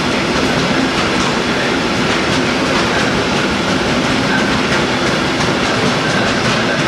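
A train rolling through a station at speed: a steady, loud rumble of wheels on rails with repeated clacks as the wheels cross rail joints.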